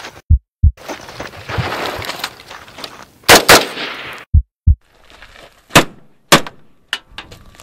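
AR-15 style carbine gunfire: a string of single sharp shots, two close together about three and a half seconds in and three more over the next two seconds. Pairs of deep, heartbeat-like thumps come between them, near the start and about four and a half seconds in.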